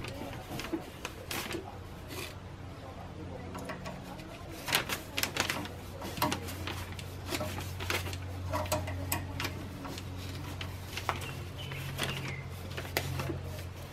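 Irregular small metallic clicks and taps as fittings and tubing are worked by hand onto the cast-iron head of a Devair 447 air compressor pump, over a low steady hum.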